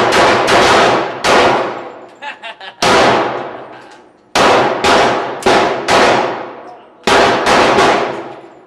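Single shots from a 9mm pistol at a slow, steady pace, about seven in all, each followed by a long echo off the concrete walls of an indoor range. A few light clinks sound between shots about two seconds in.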